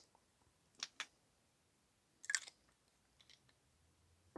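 Faint clicks and taps of fountain pens being handled: two sharp clicks about a second in, a short clatter a little after two seconds, and another click near the end.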